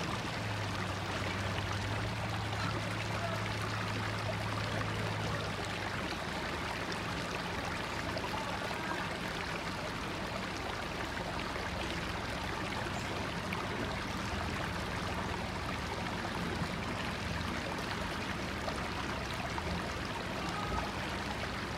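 Steady rushing of flowing creek water, with a low engine hum from the 4x4 for the first several seconds.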